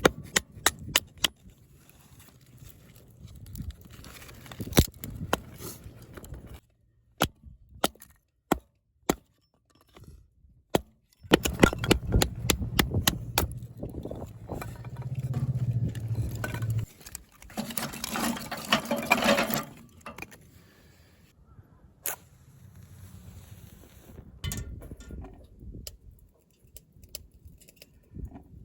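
A series of sharp clicks and knocks, some single and some in quick runs, with a few seconds of low rushing wind noise near the middle.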